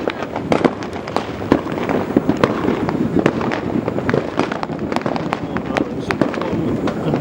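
Fireworks going off in quick, irregular succession: a dense run of sharp bangs and pops over a steady rumbling din of further bursts.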